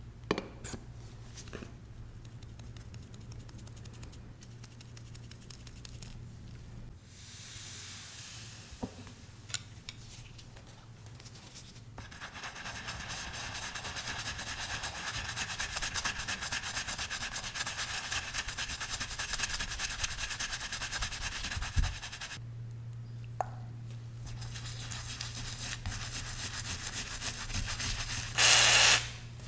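An old coin being rubbed and scrubbed clean, a dry scratchy rubbing with a few sharp clicks early on and a steady low hum underneath. The rubbing grows denser and louder in the middle, and there is one loud burst of about half a second near the end.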